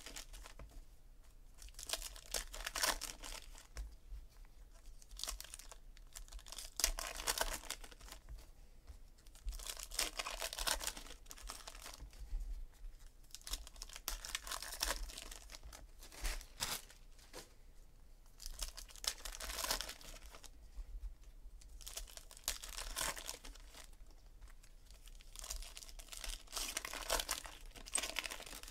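Foil wrappers of 2017 Elite football card packs crinkling and tearing open by hand, with the cards slid out and shuffled through, in rustling bursts every few seconds.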